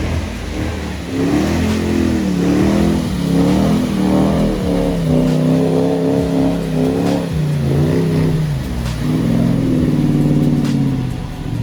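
Off-road 4x4's engine revving up and down repeatedly, its pitch rising and falling several times as the driver works the throttle.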